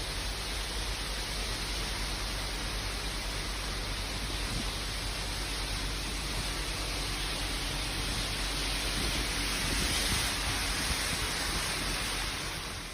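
Steady rushing noise of water, swelling slightly about ten seconds in and fading near the end.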